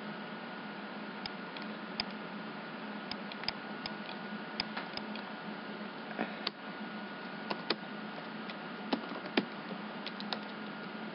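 Irregular sharp clicks of a computer mouse and keyboard as a text field is selected and retyped, over a steady hum and hiss from the recording setup.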